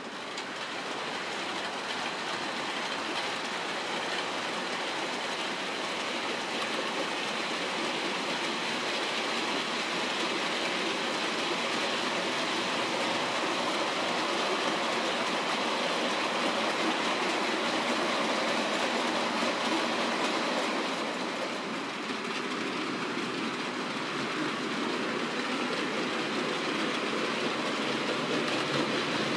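OO gauge model of a Class 56 diesel locomotive hauling hopper wagons, running along the track with a steady rolling rattle of wheels on rail. It grows louder over the first several seconds, with a brief dip about two-thirds of the way through.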